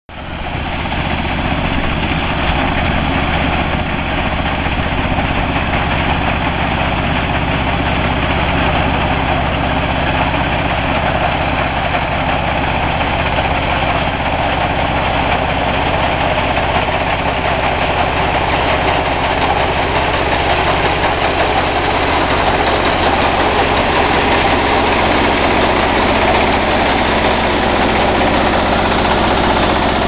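Greaves mini combine harvester running steadily as it cuts and threshes rice paddy: the steady note of its small single-cylinder diesel engine under the dense mechanical noise of the cutter and threshing drum.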